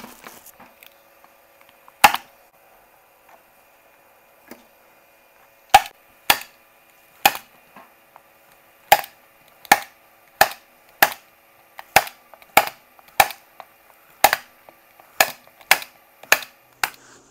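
Manual T50 staple gun driving 3/8-inch staples through fabric into a plywood seat board: a sharp snap about two seconds in, then a steady run of about fifteen snaps, roughly one every half second to second.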